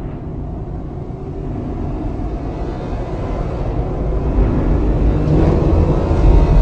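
Audi RS 5 Cabriolet's V8 engine running, growing steadily louder.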